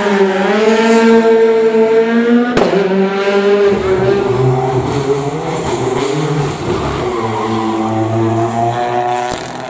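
Rally car engines at high revs on a special stage: first a Peugeot 208 rally car held high through a corner, its pitch dipping briefly and then climbing. After an abrupt cut, another rally car's engine rises and falls with throttle and gear changes, with more low rumble.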